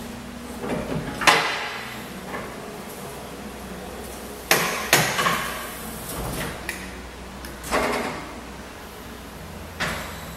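Braun Millennium Series wheelchair lift unfolding out of the van's rear doorway, its steel platform and folding plates giving a series of metal clanks and knocks over a steady mechanical hum. The loudest clanks come about a second in and around five seconds in, with two more later.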